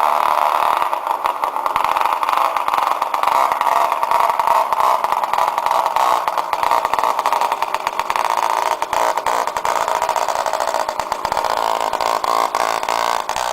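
Small moped engine running with its exhaust pipe removed, a loud, high, buzzing drone with crackle over it; the pitch sags a little partway through and climbs again near the end.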